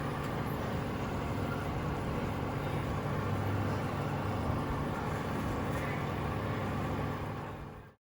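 Steady whirring hum of a kitchen fan running, fading away near the end and then cutting to silence.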